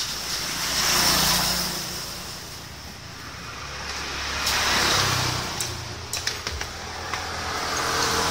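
Motor vehicles going by, the sound swelling and fading twice, over a low engine hum. A few light clicks come about six seconds in.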